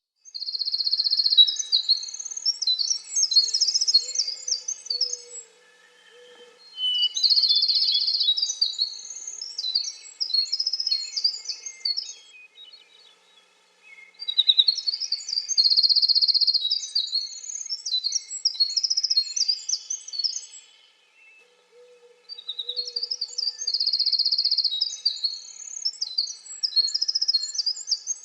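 Winter wren singing: four long songs, each about five to six seconds, that open with a high trill and run on in rapid, tumbling notes, separated by pauses of one to two seconds.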